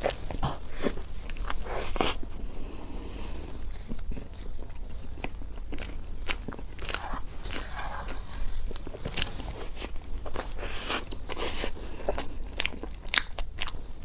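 Eating sounds: repeated crunchy bites and chewing of a fried, breaded food filled with stretchy cheese, with irregular crackles as the crust breaks.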